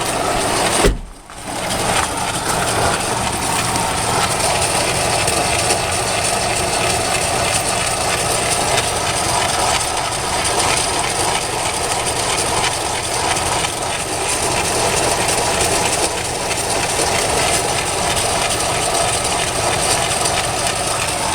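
Toyota Tacoma engine and transfer case running in gear with the driveshaft removed, giving a steady mechanical noise with a brief drop-out about a second in. The noise comes from the output end of the transfer case, which the owner takes for a transfer-case fault rather than the double cardan joint.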